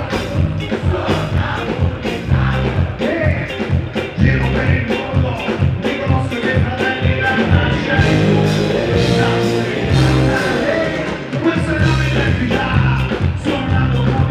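A live band playing an upbeat song with a steady beat and electric guitar, with singing over it.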